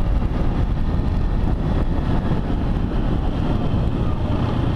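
Motorcycle riding at road speed on wet asphalt: engine running steadily under wind rush on the microphone.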